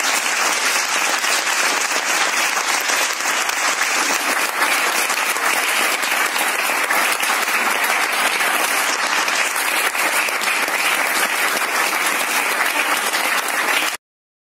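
A small audience applauding steadily, the clapping cut off abruptly near the end.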